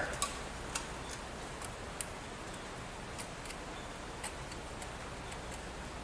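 Faint, irregular small clicks and ticks, about a dozen in all, from wires and terminal screws being handled as the wires are landed in a fire alarm control panel's screw terminal blocks, over a steady hiss.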